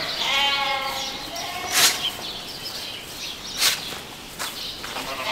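Ewes bleating in a barn pen: one drawn-out, wavering bleat in the first second or so. Two short, sharp noisy bursts follow, about two seconds apart.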